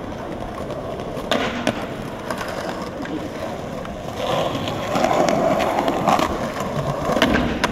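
Skateboard wheels rolling over stone paving, the rolling growing louder for a few seconds past the middle, with a few sharp clacks, two near the start and two near the end.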